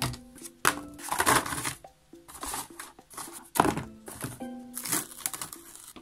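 Background music with a plucked-string melody, over which cardboard and plastic are handled in a plastic tub. The handling makes several short bursts of crinkling and scraping.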